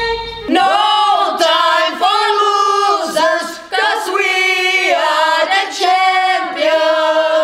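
Several voices singing a song together without instruments, in short sung phrases about a second long.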